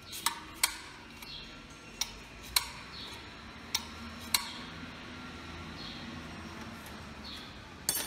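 Sharp metallic clinks and clacks, about six spread unevenly and roughly in pairs, with a few more near the end, as the control quadrant and levers of a Massey Ferguson 245 hydraulic lift cover are handled and fitted.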